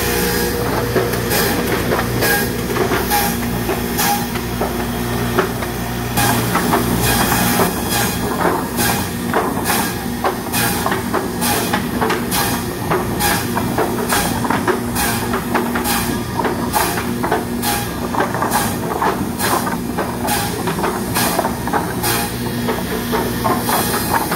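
Pallet board notcher and stacker line running with a steady machine hum. From about six seconds in, wooden boards knock and clatter at a regular pace of roughly one and a half a second as they are fed and stacked.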